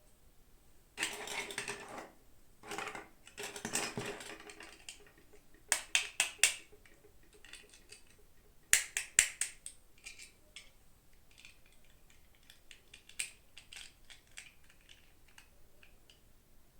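Hands unboxing small plastic toys. Two bursts of crinkling packaging come first, then quick runs of sharp plastic clicks and taps, loudest about six and nine seconds in, fading to lighter taps.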